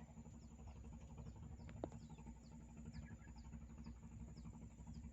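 Faint outdoor ambience: a bird repeating a short, high, falling chirp about twice a second over a low steady hum, with one small click about two seconds in.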